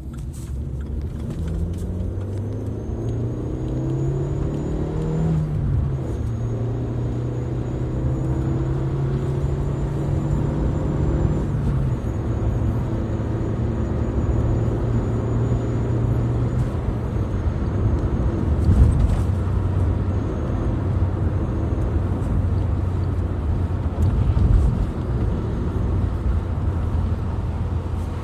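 Opel Corsa 1.4 engine running and revving, its pitch rising and falling several times. A fake turbo whistler in the exhaust adds a thin high whistle that comes and goes with the revs.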